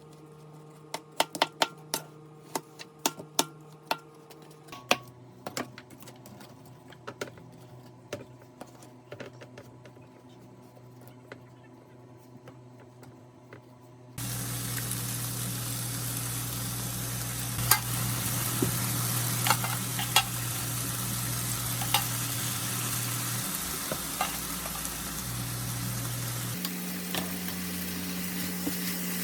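Scattered sharp taps and clicks of kitchen utensils. About halfway in, food starts sizzling loudly in a frying pan, with an occasional click of a utensil against the pan.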